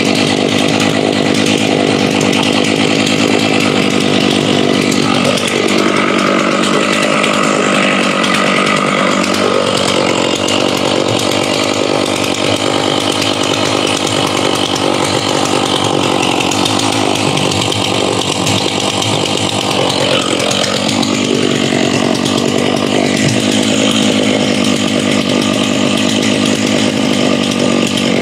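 Stihl MS660 two-stroke chainsaw running steadily with the chain brake on, with small shifts in tone. It is being left to run to burn off the fuel in its tank before seasonal storage.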